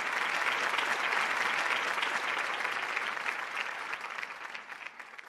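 Applause: many people clapping together, fading out near the end.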